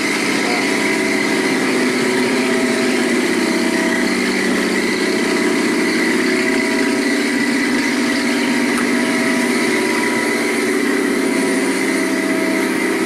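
Engine of a mobile boat lift running steadily at a constant speed, an even, unchanging hum.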